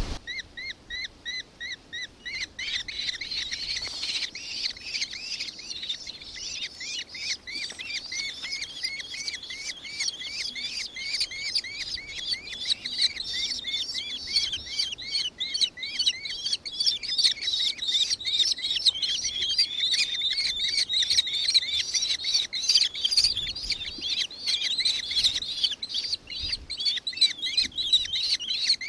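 Nankeen kestrel giving a long run of shrill, rapidly repeated chattering calls, several notes a second, growing denser after about two seconds.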